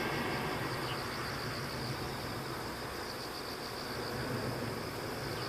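Distant roar of a climbing Boeing 777-200ER's jet engines, steady and low, with insects chirring in a fast pulsing high trill over it.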